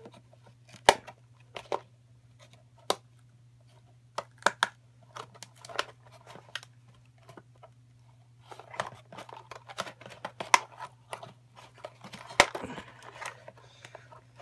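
A toy model's plastic packaging being worked open by hand: scattered sharp clicks and snaps, with denser crinkling of plastic in the second half.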